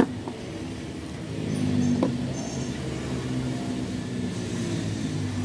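Steady low hum of a running motor, swelling a little about two seconds in, with a sharp click at the very start and another about two seconds in as wooden craft sticks are handled on the table.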